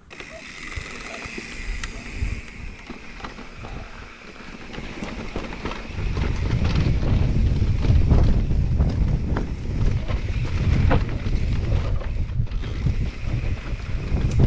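Electric mountain bike ridden over a rocky singletrack: tyres rolling over loose stones, with frequent sharp knocks and rattles from the bike, and wind rumbling on the camera microphone. The rumble gets much louder about six seconds in.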